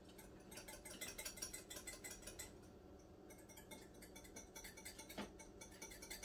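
A whisk ticking rapidly and evenly against the side of a bowl as a lemon curd mixture of eggs is whisked on the stove, with a couple of louder knocks near the end.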